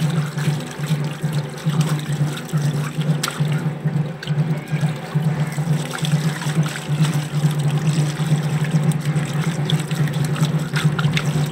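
Water poured from a jug trickling and splashing over whole eels as hands rub and scrub them clean on a wet concrete floor, over a steady low hum.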